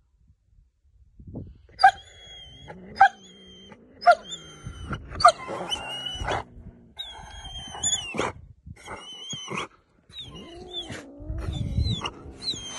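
Dog whining over and over, about once a second, in high falling whines, while it stares at the cat holding the meat bone taken from it. A lower growl-like rumble runs under the whines and is strongest near the end.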